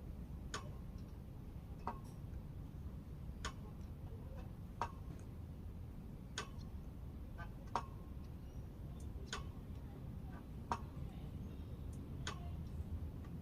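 Short sharp ticks repeating steadily about every second and a half, over a low steady rumble.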